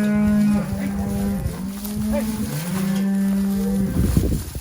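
Cattle mooing: several long, drawn-out bawls follow one another with little break, from cows and calves calling to each other as the branded calves are sent back to their mothers. A short low rumble comes near the end.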